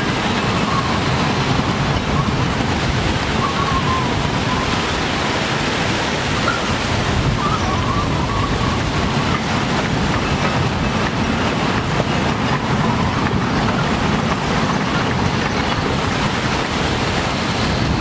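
Strong, steady wind blowing hard, with a faint wavering whistle now and then.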